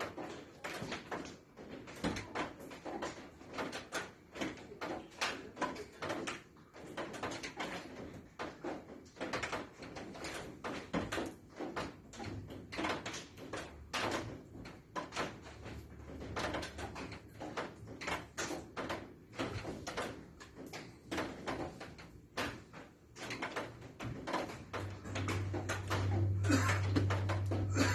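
A neighbour's household noise: irregular knocking and clattering, like doors and objects being moved. A low steady hum comes in near the end.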